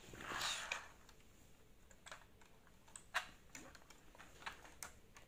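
Light plastic clicks and taps of Lego bricks being handled, a handful of sharp, separate clicks spread over a few seconds, after a brief rustle near the start.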